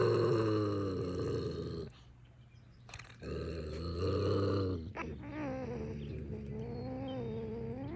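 Bobcat growling with a raw chicken drumstick clamped in her jaws. The growls are long and wavering: one at the start, a second after a pause of about a second, and a third that runs on with a rising and falling pitch.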